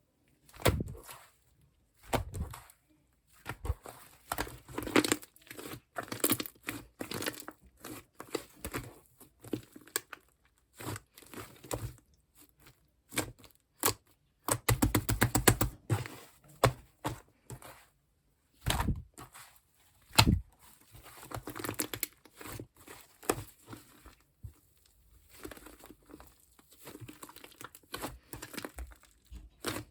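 Slime being squished, stretched and poked by hand: irregular sticky crackling and popping that comes in bursts with short pauses.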